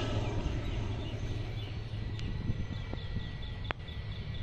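Distant rumble of an Air Astra ATR turboprop on its takeoff roll, easing off as it draws away. Over it, from about halfway through, a bird calls in a quick run of short chirps, with a single click near the end.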